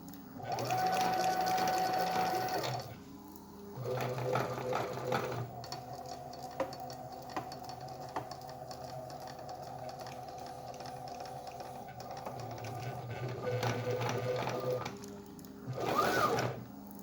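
Stepper motors of a homemade CNC machine driving its axes on a test run. Each move is a steady whining hum, with short pauses between moves and the pitch changing from one move to the next; a short move near the end rises and then falls in pitch.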